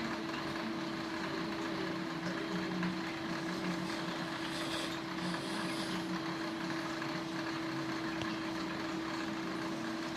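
Aquarium filter running: a steady hum on one tone over a constant hiss.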